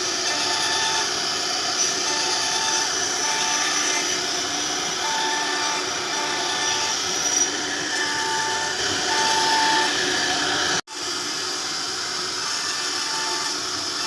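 Workshop power machinery running steadily, with a mid-pitched tone that switches on and off every second or so. The sound drops out abruptly for an instant about eleven seconds in.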